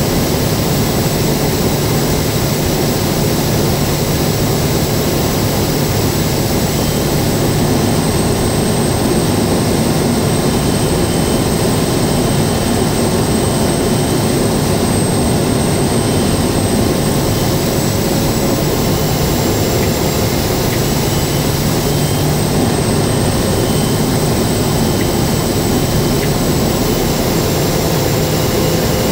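Kodiak 100's PT6A turboprop engine and propeller running steadily on approach, heard inside the cockpit: a constant drone under a high turbine whine that wavers slightly in pitch.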